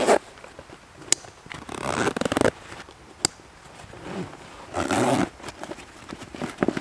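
A zip pulled in two rasping strokes, with two sharp clicks before them, as camping gear is packed away.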